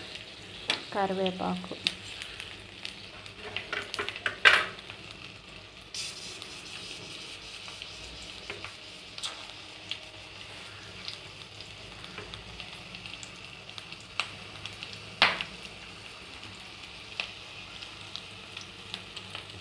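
Onion, green chillies, carrot, okra and curry leaves sizzling as they fry in oil in a pan, with a steady hiss. A steel spatula stirring them clinks and knocks against the pan now and then, the loudest knock about four seconds in.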